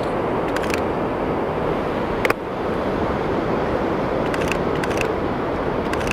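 Steady rush of ocean surf, with several short clusters of camera shutter clicks.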